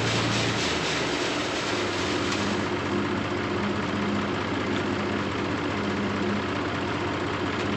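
Combine harvester running steadily in a corn field, an even engine and machinery noise. A low hum drops out about half a second in.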